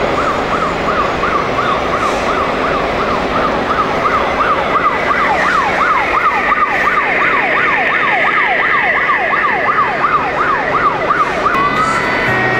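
Electronic siren from a radio-controlled model emergency vehicle's sound unit, wailing up and down fast at about three cycles a second. Its sweeps swing lower about halfway through, and it stops shortly before the end.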